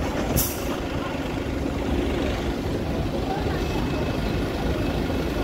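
Low, steady running of a London double-decker bus standing at a stop, under busy street noise and people talking. A short hiss comes about half a second in.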